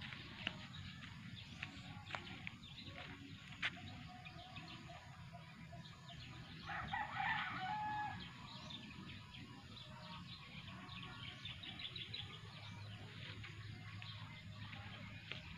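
A rooster crows once, about seven seconds in, a single call lasting about a second and a half. Small birds chirp faintly in the background.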